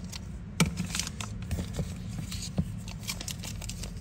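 Zippo lighters being handled: one sharp metallic click about half a second in, then a few lighter clicks and rustling, over a steady low hum.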